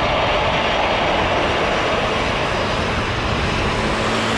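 Steady jet engine noise from an Airbus A320neo airliner with CFM LEAP-1A engines, an even roar with no change in pitch.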